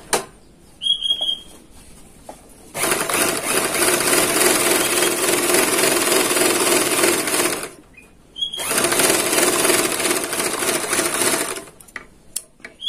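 Small overlock (serger) machine running at speed, stitching and trimming a fabric edge with its freshly sharpened knife, in two steady runs of about five and three seconds with a brief stop between them.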